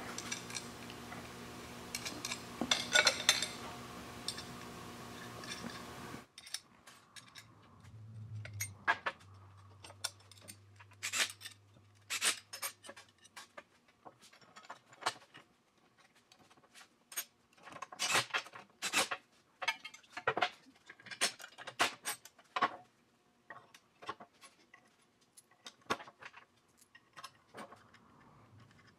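Steel mounting bracket, bolts and nuts clinking and knocking together as they are handled and bolted up by hand: irregular sharp metallic clicks, some in quick clusters.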